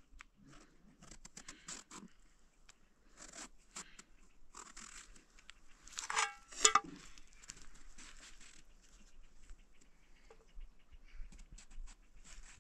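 A small knife peeling a vegetable, in a series of short scratchy scraping strokes. About six seconds in come two louder sharp clinks.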